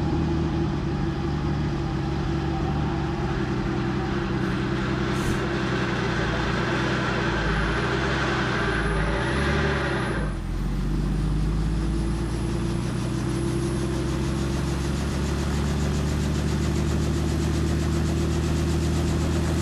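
Small helicopter running on the ground, a steady engine and rotor hum with fine regular pulsing. The sound dips briefly and shifts pitch about halfway through.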